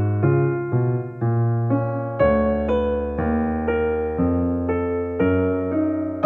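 Background music: a gentle piano or electric-piano piece, with chords struck about once or twice a second, each ringing and fading before the next.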